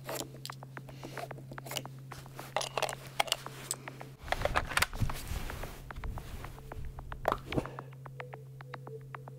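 Handling noise as a .338 rifle is readied for a shot: scattered clicks and scrapes of cartridges and a rifle magazine, with clothing rustling, over a steady low hum. Near the end comes a quick run of faint ticks.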